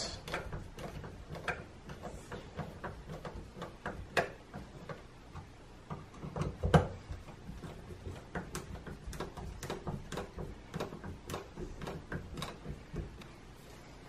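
Hand screwdriver turning the metal mounting screws of a wall dimmer switch into the electrical box: a string of small irregular ticks and scrapes, with a louder knock a little under seven seconds in.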